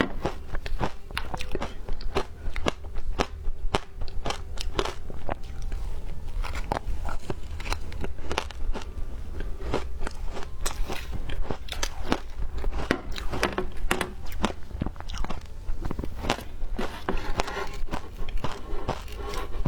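A person biting and chewing frozen shaved ice, with many irregular sharp crunches and cracks in quick succession.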